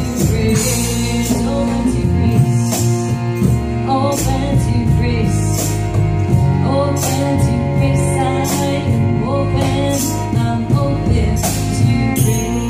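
Live kirtan music: a chant sung over harp, drums and a steady jingling hand-percussion beat.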